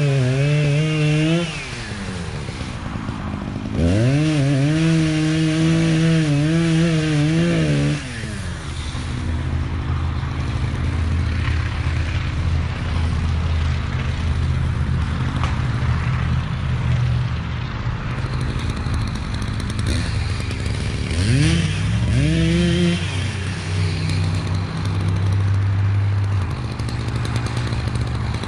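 Echo CS-590 two-stroke chainsaw revved to full throttle, dropping back briefly, then held high again for about four seconds. After that it runs at a lower, steadier speed, with one quick rev up and back down a few seconds before the end.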